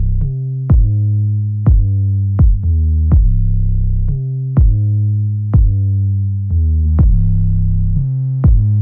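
Background electronic music: deep sustained bass notes under a regular drum-machine beat.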